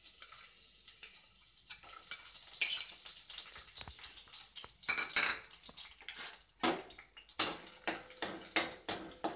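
Chopped garlic sizzling in hot oil in a steel kadai, with a metal spatula scraping and stirring against the pan. Toward the end the scrapes come in fairly regular strokes, about two a second.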